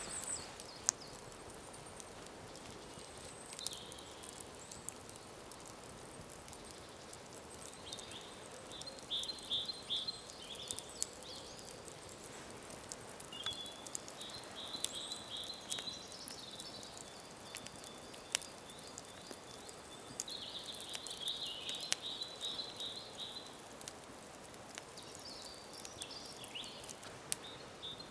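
Birds singing in short rapid trills, heard several times, over a campfire crackling with scattered sharp pops.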